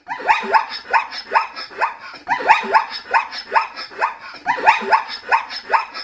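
Plains zebra's barking call: rapid calls, each falling in pitch, in three bouts of about two seconds.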